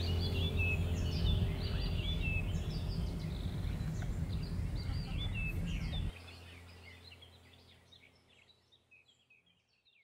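Small birds chirping and singing over a loud, low steady hum. The hum cuts off suddenly about six seconds in, and the birdsong fades away to silence near the end.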